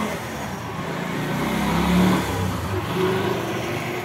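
A motor vehicle passing by on the street, its engine noise swelling to its loudest about halfway through and then fading.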